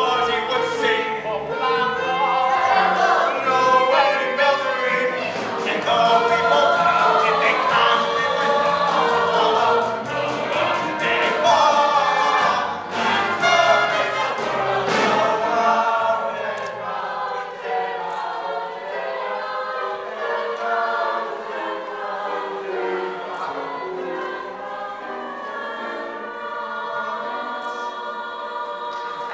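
Male ensemble singing a show tune together over musical accompaniment, growing quieter about halfway through.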